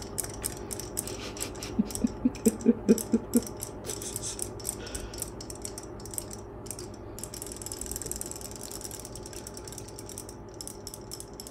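Several battery-powered robotic swimming fish toys running in a sink of water, their tail motors making a fast mechanical ticking. About two seconds in comes a quick run of about eight short, low, pitched pulses, the loudest sound here.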